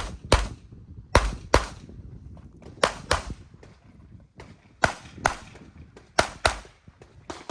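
Tanfoglio pistol being fired in quick double-taps on a practical shooting stage: five pairs of shots, the pairs about a second to a second and a half apart.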